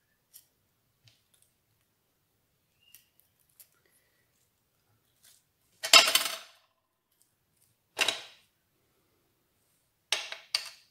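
Craft tools handled on a plastic cutting mat: short knocks and scrapes. The loudest comes about six seconds in, another two seconds later, and two quick ones near the end, with only faint ticks in between.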